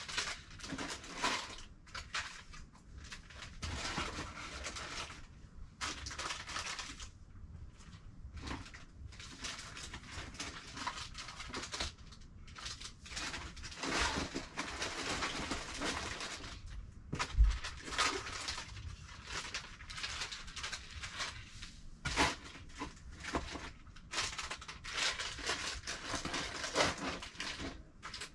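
Rustling and crinkling of packaging and household things being handled and sorted in cardboard boxes, with irregular knocks and clicks and one louder thump a little past halfway.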